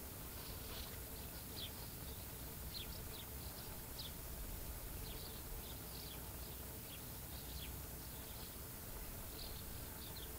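Outdoor ambience by a pond: short, high chirps scattered irregularly, several a second, over a faint low rumble.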